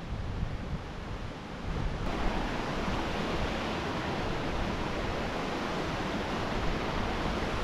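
Wind rumbling on the microphone at first, then about two seconds in a steady rushing of a running stream comes in suddenly and holds.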